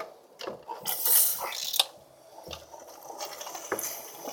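Metal engine parts and hand tools clinking and clicking as they are handled during the engine teardown. About a second in there is a scraping rustle.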